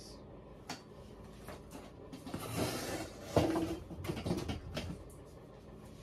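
Handling noises as a ceiling fan's motor housing is gripped and moved by hand: scattered clicks, a rustle about two and a half seconds in, then a sharp knock and a few rattles just after.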